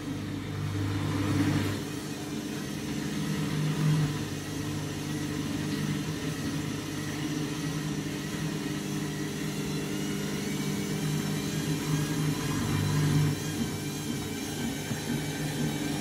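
Candy front-loading washing machine in its final spin: the drum motor runs with a steady hum and whine as the drum gathers speed.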